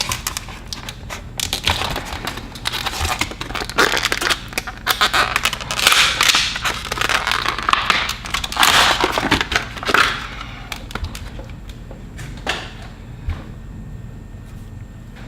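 Crackling, crunching packaging being torn and pulled open by hand, loudest about six and nine seconds in, then dying down to a few faint clicks.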